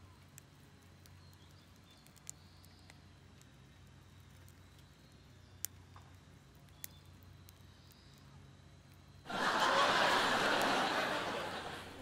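Wood fire burning low in a fire pit, with a few faint sharp crackling pops. About nine seconds in, a sudden loud rushing noise starts and slowly fades.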